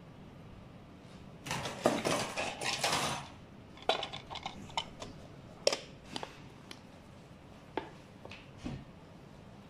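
Hands working a black plastic cover and wiring onto an electric scooter's metal housing: a second or so of rough rustling and scraping, then a scattered run of sharp plastic clicks and light knocks as the cover is pressed into place.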